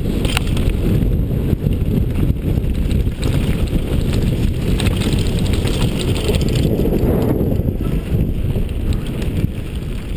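Wind buffeting a helmet-mounted action camera's microphone at speed on a downhill mountain bike, mixed with tyres crunching over loose gravel and the bike's rattle and clatter over rough ground. The rumble eases a little near the end as the trail opens onto a smoother track.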